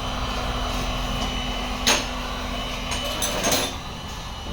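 Body-shop background hum with a single sharp knock about two seconds in and a short clatter about a second later.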